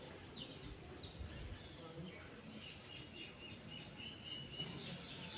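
Small birds chirping faintly over low outdoor background noise, with a few short chirps near the start and a longer twittering run in the middle.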